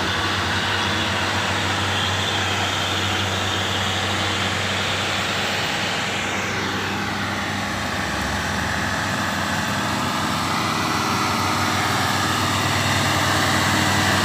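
Heavy truck diesel engines running steadily under load on a climb, with a whine that falls in pitch about six seconds in.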